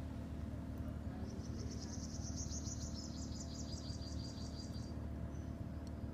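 A high-pitched chirping trill of evenly spaced pulses, about six a second, starting about a second in and lasting about three and a half seconds, over a steady low hum.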